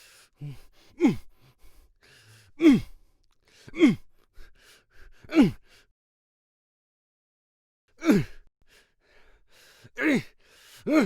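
Man's fight grunts and short shouts of effort, each a brief exclamation falling in pitch. About seven come at one-to-two-second intervals, with a silent pause of about two seconds midway.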